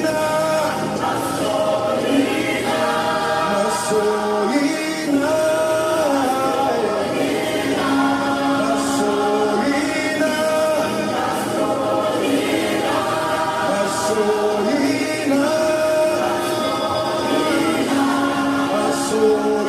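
A choir and congregation singing a gospel praise song together, many voices holding and moving between long sustained notes.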